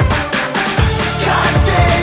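Background music with a steady beat: a heavy bass drum and quick high percussion, joined by a held bass line about a second in.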